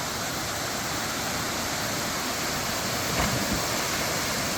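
Waterfall pouring into its plunge pool: a steady rushing of water.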